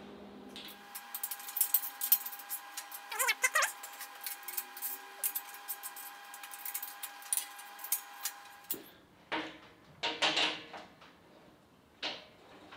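Wrench working 17 mm bolts on a steel frame: irregular metallic clicks and clinks for most of the first nine seconds, then a few scraping knocks.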